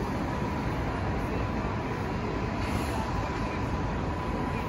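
Steady low rumble of a standing or idling vehicle, with a faint, steady high whine running through it.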